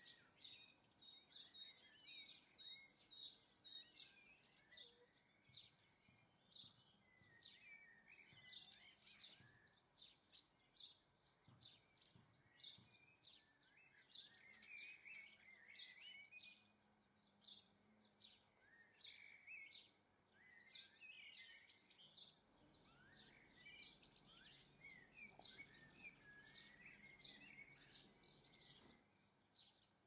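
Faint chirping and twittering of small garden songbirds: short high chirps repeat about twice a second, with bursts of lower twittering in between.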